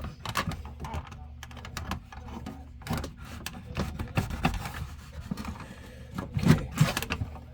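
Irregular taps, clicks and short scrapes of wooden lure blanks and hand tools being handled on a workbench, with a steady low hum beneath.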